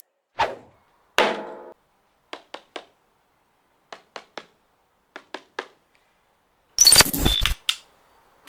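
Packaging being handled in an unboxing: two knocks, the second with a short ring, then three sets of three quick clicks, and near the end a loud burst of crinkling and rustling.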